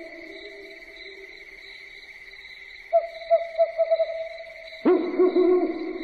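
An animal sound effect of hooting calls, quick runs of short repeated low notes. They are faint at first, come in again about three seconds in, and grow louder near the end, over a steady high whine.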